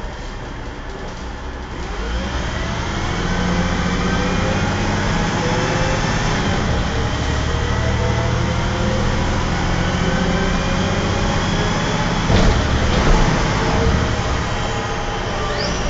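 Cummins ISC straight-six diesel of an MCW Metrobus double-decker pulling away and accelerating, getting louder about two seconds in, with a rising whine over the engine note. A brief knock about twelve seconds in.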